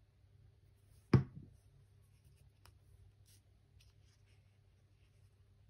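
Quiet paper handling as a torn, glue-backed piece of painted paper is laid onto a journal page and pressed down by hand: faint rustles and light ticks, with one sharp thump about a second in and a smaller click a moment later.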